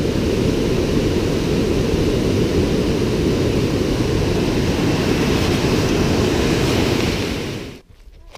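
Whitewater rapids rushing below, a steady, loud noise heavy in the low end, which cuts off abruptly near the end.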